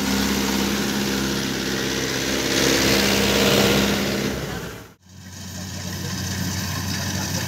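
Mahindra Yuvo tractor's diesel engine running under load as it pulls a trailer through a muddy field, swelling louder around three to four seconds in. After a sudden cut about five seconds in, a steadier, lower engine hum follows.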